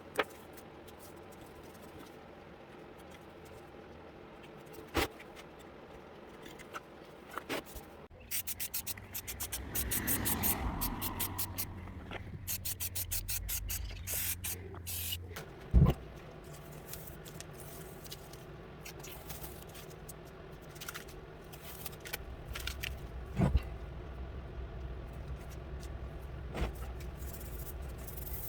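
Workshop handling sounds: scattered sharp metal clicks and knocks over a steady low hum, with a stretch of rapid ticking and scraping about a third of the way in.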